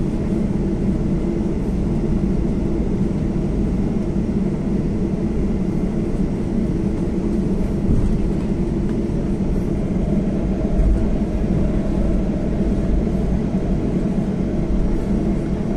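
Cabin noise of a jet airliner taxiing toward the runway: the engines run at low taxi power, a steady low rumble with a constant hum.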